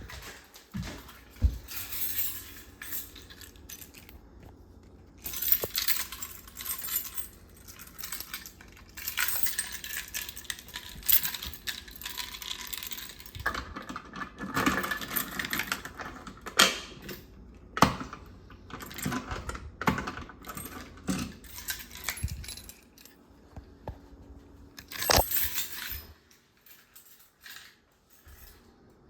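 Irregular clinks, clatters and rustles of small objects being handled, with a light metallic jingle.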